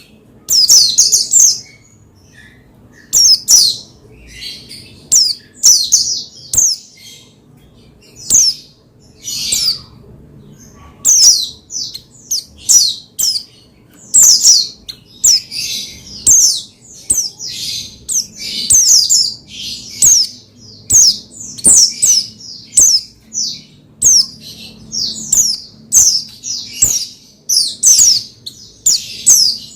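White-eye (pleci) song: rapid clusters of short, high, falling chirps, broken by brief pauses and running on almost without stop.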